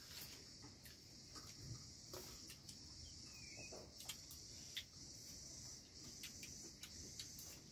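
Faint steady chorus of insects, with scattered soft clicks.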